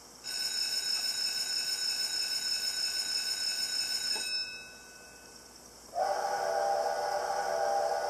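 Recorded steam-locomotive whistle from a KATO Sound Box for a C59 model: a high, steady whistle for about four seconds, a short pause, then a lower, louder whistle starting about six seconds in and held.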